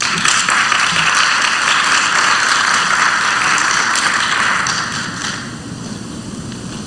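Audience applauding, starting at once and fading out after about five seconds.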